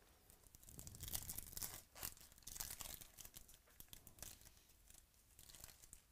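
Foil wrapper of a trading-card pack being torn open and crinkled, in bursts of rustling crackle that are densest in the first half and thin out after.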